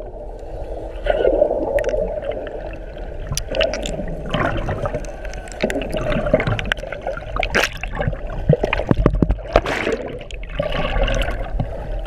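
Muffled water sound heard through an underwater camera housing: water gurgling and sloshing around the camera, with scattered sharp clicks and knocks.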